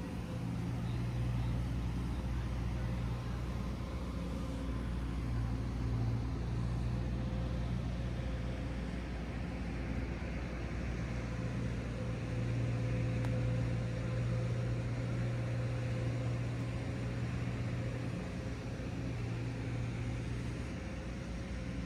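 Steady low rumble of city road traffic, with a constant low hum underneath.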